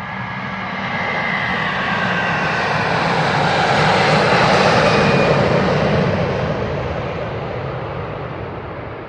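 Airbus A330-300's twin jet engines passing close by along the runway: a dense jet noise with a thin whine in it early on, swelling to its loudest about halfway and then fading as the aircraft moves away.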